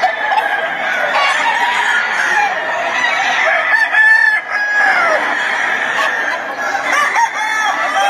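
Many caged game roosters crowing and clucking over one another in a dense, loud chorus of overlapping calls, with no pause.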